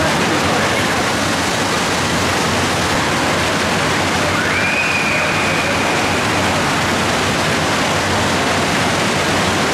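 Steady rushing and splashing of water from the pools and fountain jets of an indoor water park. About four and a half seconds in, a thin high tone rises and then holds for about a second and a half.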